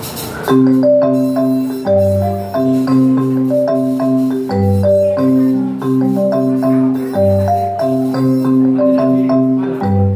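Korg Kross 2 synthesizer keyboard played: a melody of short, quickly fading mallet-like notes over held chords in the bass, starting about half a second in.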